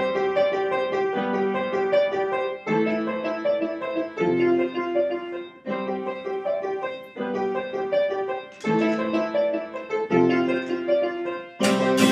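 Upright piano playing a slow introduction in repeated chord phrases, each about a second and a half long. An acoustic guitar joins with strummed chords near the end.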